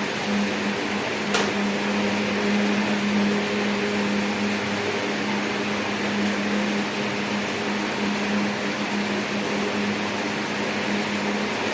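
A steady mechanical hum over a constant hiss, with a single click about a second and a half in.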